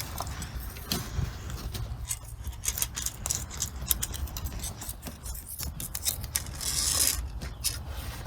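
Scraping, rubbing and clicking of metal on metal: a telescopic pickup magnet being pushed into and swept along the inside of a rear axle housing to gather metal bits left by the broken differential. The scraping is densest about seven seconds in.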